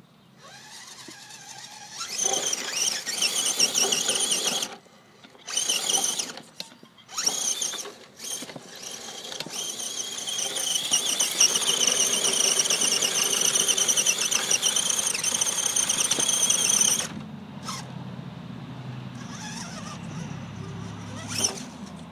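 Electric drivetrain of an Axial SCX10 RC rock crawler (Holmes Hobbies 35-turn Torquemaster brushed motor through hardened steel transmission gears) whining high under throttle: three short bursts, then one long steady pull of about eight seconds as it climbs. Near the end the whine stops and a lower rumble is left.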